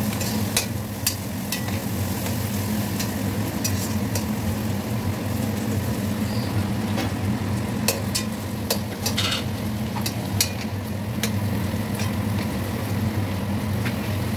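Onion, capsicum and green chillies frying in oil in a metal kadai, sizzling steadily while a metal spatula stirs them, scraping and clinking against the pan again and again. A steady low hum runs underneath.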